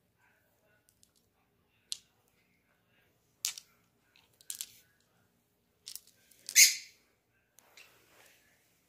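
Clear chandelier crystal pendants clinking against each other as they are picked up and handled: a string of short, sharp clinks, the loudest about two-thirds of the way in.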